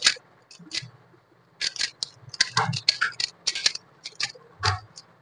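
MoYu Super RS3M magnetic 3x3 speed cube being turned by hand: quick, irregular clicks and clacks as its layers turn and snap into place, coming in short flurries with brief pauses, and a soft handling thump near the end.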